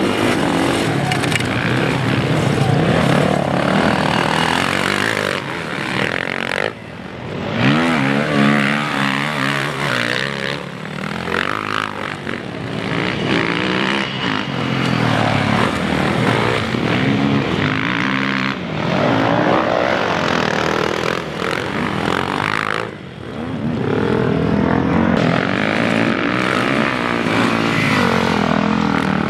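Motocross dirt bike engines revving hard as the bikes race by, the pitch climbing and falling again and again as the riders accelerate, shift and back off.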